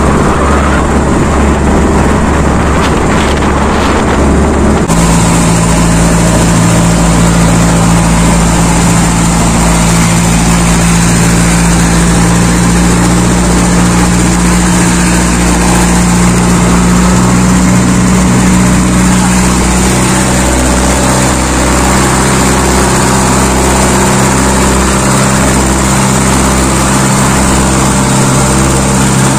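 Small fast boat's engine running steadily at speed, with wind and water rushing past. The engine tone changes abruptly about five seconds in, then holds steady.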